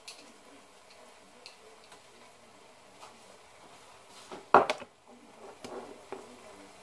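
Kitchen utensils knocking against cookware: a few light ticks, then one loud clatter about four and a half seconds in, followed by a few smaller clinks.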